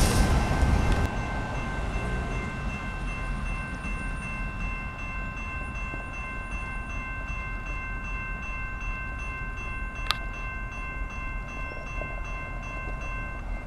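Railroad grade-crossing warning bell ringing steadily while the crossing gates are down, over the low rumble of a passing equipment train; the bell stops near the end. A loud rush of train noise fills the first second and cuts off, and there is a single sharp click about ten seconds in.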